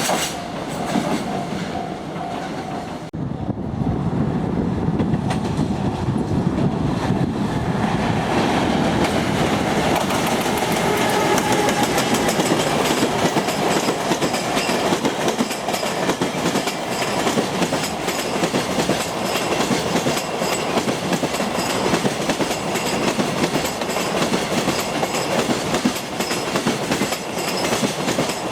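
JR Freight EF210 electric locomotive and its freight wagons passing, arriving with a sudden rise in sound about three seconds in. The wagon wheels then clickety-clack steadily over the rail joints.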